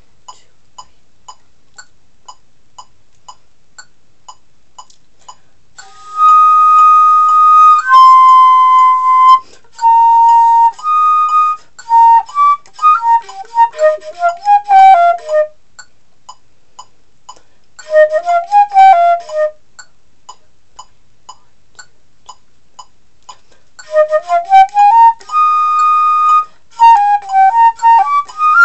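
A metronome ticking about twice a second, then a concert flute playing over it about six seconds in: a few held notes followed by quick running passages, broken by pauses of a few seconds, the flute going in and out while the metronome keeps time.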